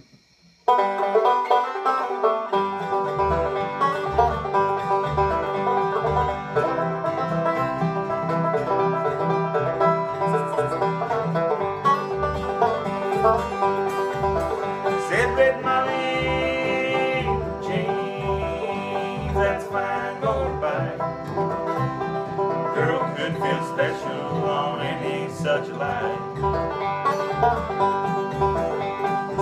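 A bluegrass trio plays: a five-string banjo picks over a strummed acoustic guitar and a plucked upright bass keeping the beat. The music starts about a second in.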